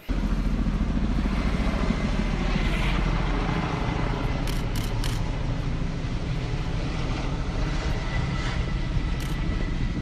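Steady low engine rumble of firefighting aircraft working over a forest fire, with a faint high whine coming in during the second half.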